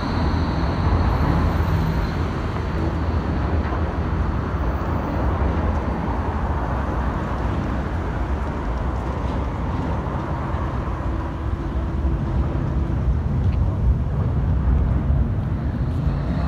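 Steady rumble of road traffic at a busy city-street tram stop. A yellow low-floor tram leaves the stop in the first seconds, its faint electric whine fading.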